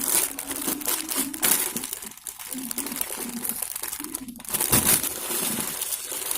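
Plastic packaging crinkling and rustling as it is handled and pulled apart, in an irregular run of crackles.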